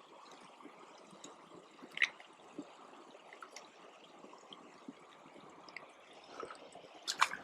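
Creek water trickling steadily, with a sharp click about two seconds in and a brief louder burst of sound near the end.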